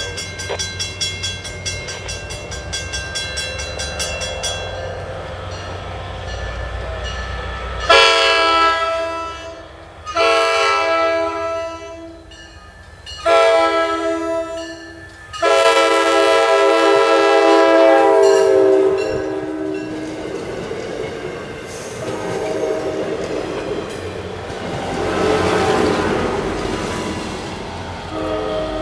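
MARC commuter train's K5LA air horn sounding four blasts for a grade crossing, the last held longest. The train then rolls past, its diesel locomotive rumbling by near the end.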